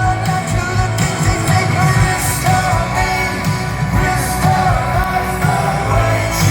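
A rock band playing live, with a lead singer's sung melody over the band's beat and bass.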